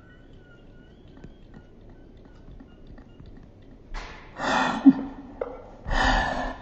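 A person wheezing: two loud, noisy breaths about four and six seconds in, after a few quiet seconds.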